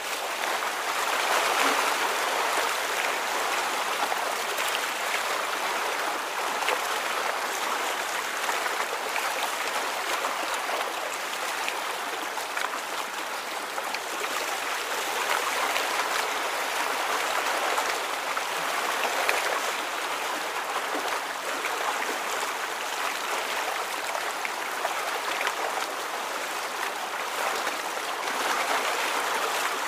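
Steady running water, a continuous rushing and trickling like a stream, swelling and easing only slightly.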